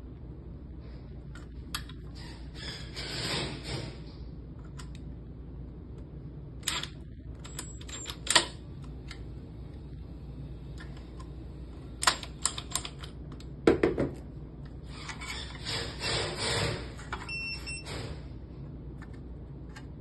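Irregular clicks, taps and scraping as the small metal and plastic parts of a smart lock are handled and fitted together, with a few sharp knocks among them.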